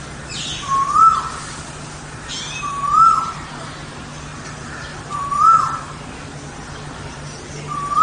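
Western crowned pigeon calling: four short hooting notes about two seconds apart, each rising and then dropping in pitch.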